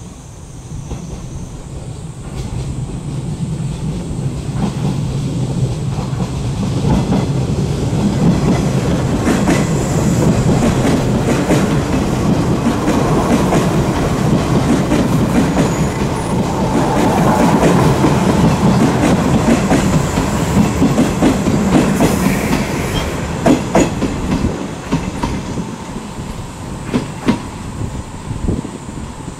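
A JR 381 series limited express electric train passes close by and runs away, its wheels clacking over the rail joints. The rumble builds, stays loud through the middle, then fades, leaving a few separate clacks near the end.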